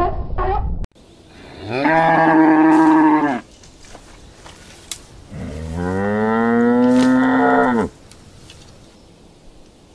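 Cow mooing twice, two long low calls a couple of seconds apart; the second is longer and bends in pitch. Before them, under a second of short repeated animal yelps cuts off abruptly.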